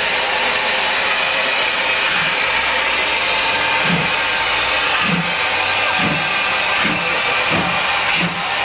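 Steam locomotive 50 622, a two-cylinder 2-10-0, hissing loudly as steam escapes from around its cylinders, with its exhaust beats starting about halfway through and quickening as it gathers speed.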